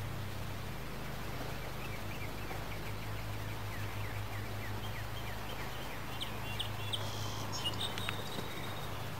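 A bird calling: a run of short falling notes repeated a few times a second, then a few sharper, louder chirps near the end, over a steady low hum.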